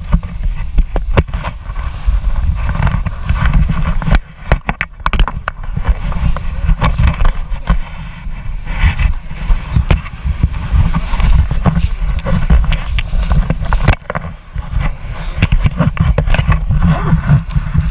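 Wind buffeting the microphone: a loud, gusting low rumble with frequent crackles, easing briefly a couple of times.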